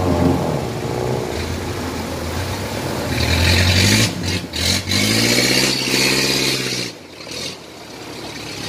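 Off-road pickup truck's engine labouring through a rocky river ford, with water rushing and splashing around the wheels. The engine revs up and down about five to seven seconds in as the truck climbs out past the bank, then the sound drops away near the end.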